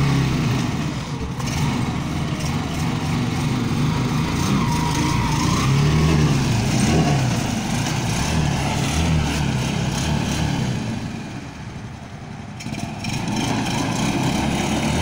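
Motorcycle engine of a homemade amphibious flood-rescue bike running and revving up and down as the bike moves out through shallow water. It eases off briefly about eleven seconds in, then picks up again.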